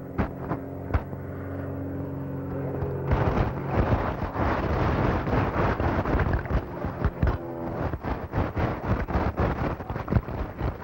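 Piston engines of a twin-engine propeller plane droning steadily. About three seconds in, a louder, dense rattling noise full of sharp clicks takes over.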